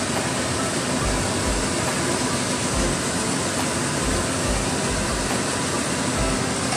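A steady rushing noise, like a running fan, with soft low thumps about every half second.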